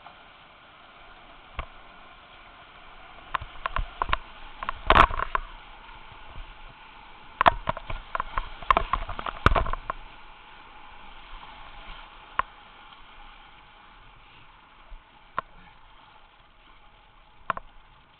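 Whitewater rushing around a kayak in a river rapid, with sharp slaps and splashes of paddle strokes and water against the boat. These come in two busy clusters, about four seconds in and again around the middle, with a few single slaps later.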